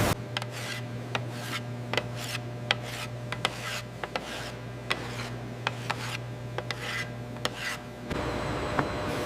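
Repeated short scraping or rasping strokes, irregular and a few a second, over a steady low machine hum. About eight seconds in, the hum and strokes cut off suddenly and a louder, even noise takes over.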